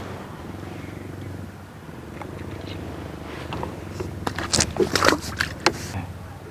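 Steady low hum, with a burst of sharp clicks and rattles from about four to six seconds in.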